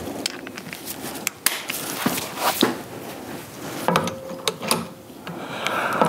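Metal clinks and light clicks of a torque wrench and socket being worked onto a bolt of a power steering and vacuum pump assembly, in scattered irregular knocks.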